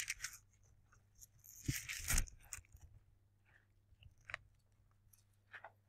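Faint rustling and a few short clicks of Bible pages being turned, over a low steady hum.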